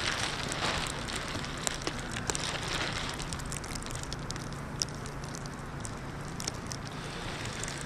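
Plastic bag over the camera crackling and rustling, with scattered sharp ticks over a steady hiss; denser for the first few seconds, then thinner.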